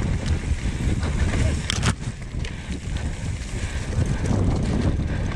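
Wind noise on the camera microphone over the low rumble and rattle of a mountain bike rolling fast downhill on a dirt trail. There is one sharp knock about two seconds in.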